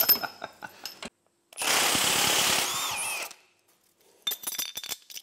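A power tool runs in one burst of about two seconds, the loudest sound here, with small metal parts clicking and clinking before and after it.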